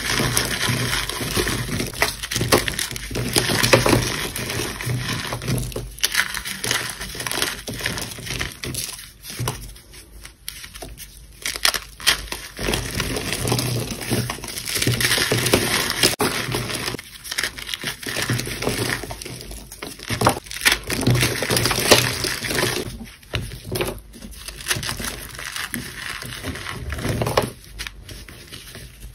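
Hands crushing and crumbling blocks of gym chalk. The dry crunching comes in bursts of a few seconds, with short quieter pauses between handfuls.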